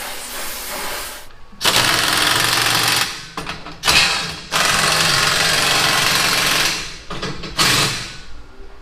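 A cutting torch hissing for about a second, then an air-powered wrench rattling in four bursts, the longest about two seconds, as it tightens exhaust clamp nuts.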